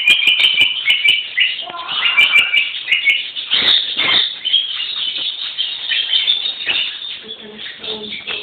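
Two ferrets play-fighting, giving rapid high-pitched squeaks and chirps, densest in the first half, over the scuffle of their bodies in wood shavings.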